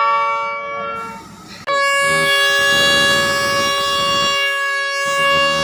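Thai railway train's air horn sounding a chord of several notes: one blast that stops about a second in, then a long held blast starting just under two seconds in.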